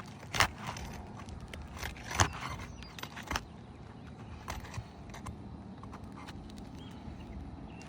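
Scattered sharp clicks and scrapes of a tool working under asphalt roof shingles to break their seal strips, the loudest about half a second and two seconds in.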